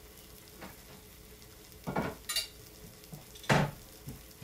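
Ceramic dinner plates clinking and knocking together as a plate is taken down from a kitchen cabinet: a few separate sharp knocks, one ringing briefly, the loudest about three and a half seconds in.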